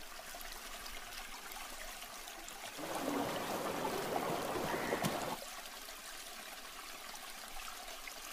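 Stream water trickling steadily, growing louder and fuller for about two and a half seconds in the middle before settling back.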